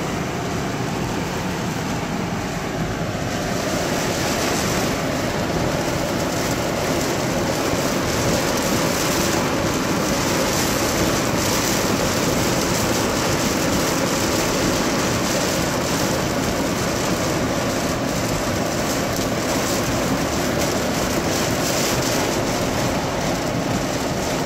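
Heavy rain falling on a car's roof and windshield, heard from inside the cabin as a steady hiss, while the car drives on wet road in the downpour.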